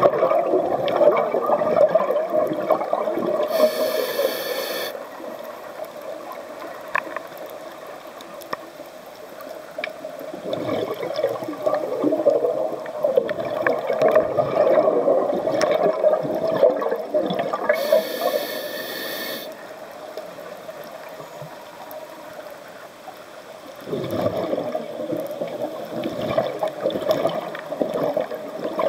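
Scuba diver breathing through a regulator, heard underwater: three long spells of exhaled bubbles rushing and gurgling, with quieter stretches between them and a short hiss twice.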